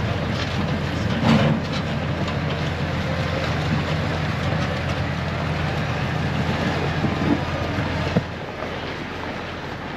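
Tractor engine running under way, heard from inside the cab, with a couple of clunks from the cab and the towed livestock trailer. About eight seconds in, the engine note drops to a lower, quieter running.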